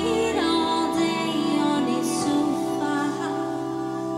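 A woman singing over sustained Korg keyboard chords in a live band performance, the bass note changing about halfway through.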